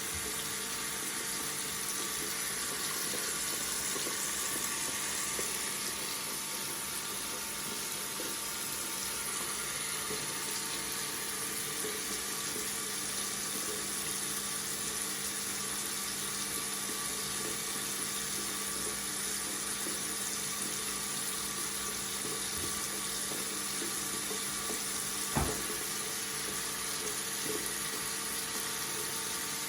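Tap water running steadily from a faucet into a sink, with a single sharp click near the end.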